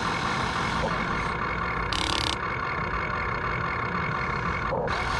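Huina 1592 RC excavator running, its electric gear motors giving a steady whine as the boom lowers and the bucket curls. A short hiss comes about two seconds in.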